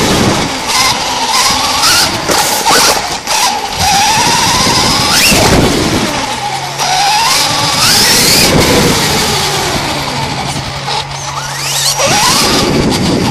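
Electric motor of a 4x4 RC truck whining and rising and falling in pitch as it speeds up and slows, over loud tyre rumble, wind and jolts. It is heard from a camera mounted on the truck itself.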